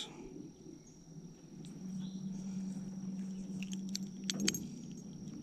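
A small electric motor, the jon boat's trolling motor, humming low and steady for a couple of seconds before cutting off, with a few light clicks and rattles as it stops. A high, steady insect buzz runs underneath.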